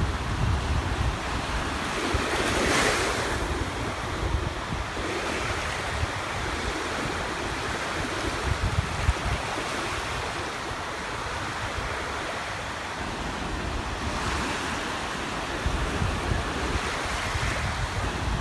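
Sea surf breaking and washing in at a beach, swelling louder about two to three seconds in and again near the end. Wind buffets the microphone with low, gusty rumbling.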